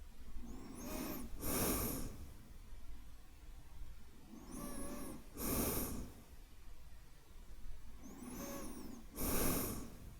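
A man's slow, deep breathing close to the microphone, meant to soothe the listener to sleep. There are three breaths about four seconds apart, each a softer draw with a faint nasal whistle followed by a louder release of air.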